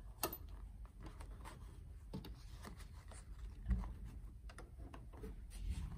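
Faint rustling and small clicks and scrapes of hands handling fabric and a zipper under a sewing machine's raised presser foot, with the machine stopped.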